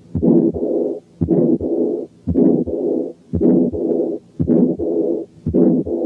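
Heart sounds through a stethoscope's diaphragm at the second aortic area, about one beat a second. Each beat has an ejection systolic murmur, then the second heart sound, then an early diastolic murmur that fades before the next beat. This to-and-fro pattern is the sign of combined aortic stenosis and aortic incompetence.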